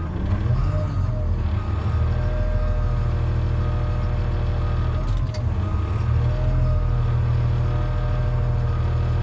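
Cat front wheel loader's diesel engine running, with hydraulic whine as the bucket is worked. The engine note dips near the start and again about five seconds in.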